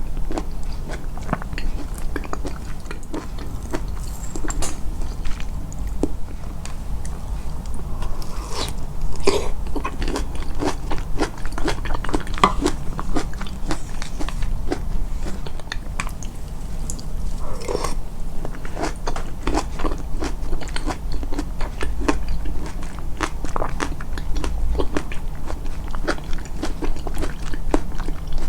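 Close-miked chewing and biting of food, a continuous run of short, crisp, wet clicks of the mouth and teeth, with some crunchy bites.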